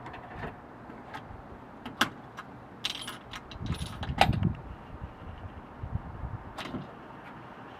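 Keys jangling and metal clicking, as a lock box and a door lock are worked: scattered sharp clicks and rattles, the loudest about four seconds in.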